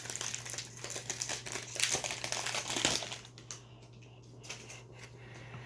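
Foil wrapper of a hockey card pack crinkling as it is torn open, for about three seconds, followed by quieter handling with a few light clicks.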